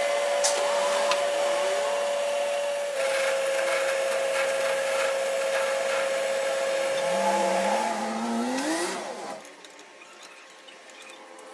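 Metal lathe machining a clutch flywheel, the cutting tool scraping with a steady ringing tone. The pitch rises near the end before the cut dies away about nine seconds in.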